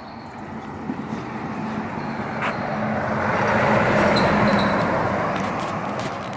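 A semi-truck (a day cab pulling an empty flatbed trailer) drives past. Its engine and tyre noise builds to a peak about four seconds in, then fades.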